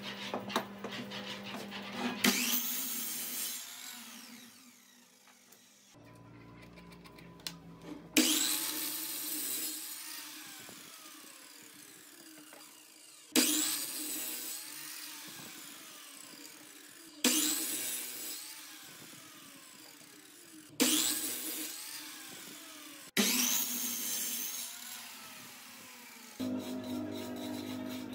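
Electric sliding compound miter saw cutting through pine boards, six times in a row. Each cut starts suddenly and loudly, then fades as the blade's whine falls in pitch. Each one is broken off abruptly.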